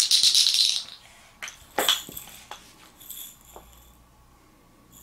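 Small hand-held wooden toy shaken hard, giving a dense rattle for under a second. After that come a few shorter rattles and single wooden clicks.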